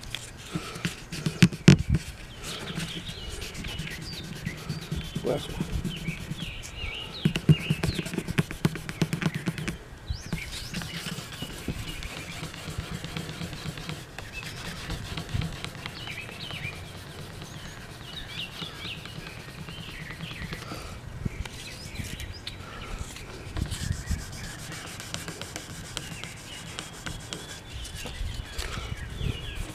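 Fingers rubbing fine 2000-grit sandpaper over the lacquered spruce top of an acoustic guitar in short scrubbing strokes, working out spots in the finish. There are a few sharp knocks about two seconds in and again around eight seconds, and birds chirp in the background.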